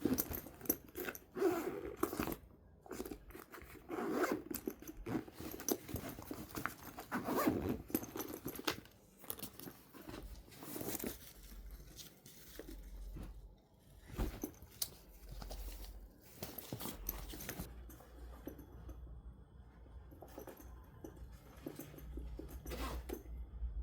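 Zippers on a Petsfit fabric backpack cat carrier being pulled open and shut, a run of short rasping strokes in the first half, then quieter handling of the carrier's fabric.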